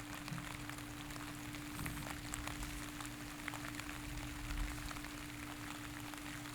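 Steady rain ambience, an even hiss with many small scattered drop ticks, over a faint constant low hum.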